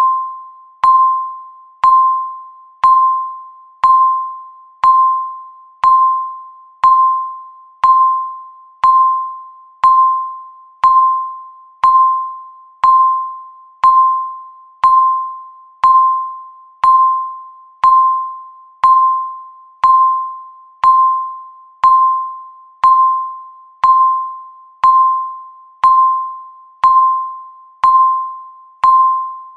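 Countdown timer's electronic beep, one short clear tone every second, each struck sharply and fading away quickly.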